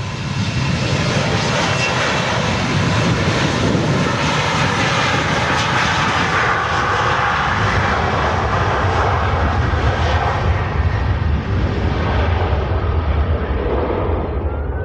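Gulfstream G650ER business jet's twin Rolls-Royce BR725 turbofans at takeoff power: a loud, steady jet roar. The high hiss fades over the last few seconds as the jet moves away, leaving the low rumble.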